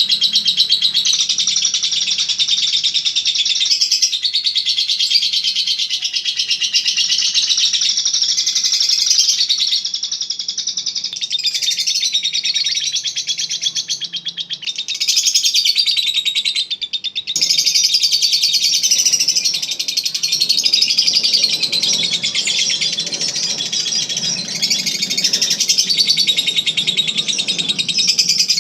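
Lovebird singing its long 'ngekek' song: a fast, continuous high-pitched chattering trill that runs on with only a few brief breaks.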